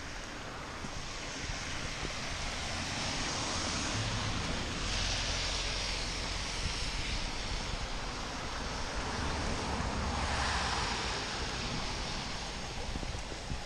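Rain-swollen, muddy stream rushing in a steady wash of water noise, swelling a little midway, with wind rumbling on the microphone.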